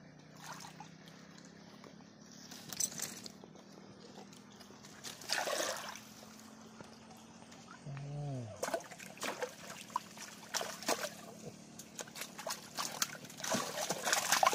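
Water sloshing and splashing in irregular bursts, a few at first and then busier and louder over the second half.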